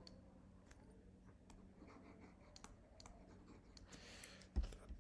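Faint, scattered clicks and taps of a pen on a writing tablet while handwriting is drawn, over a faint steady hum. A louder low thump comes near the end.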